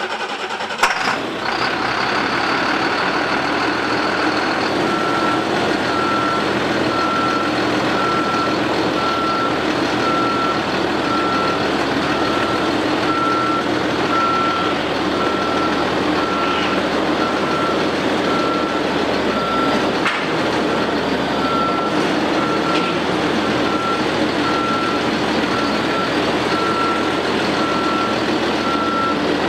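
Diesel engine of a Chevrolet medium-duty truck idling steadily just after starting, with a single knock about a second in. From about five seconds in, a high electronic beep repeats just over once a second.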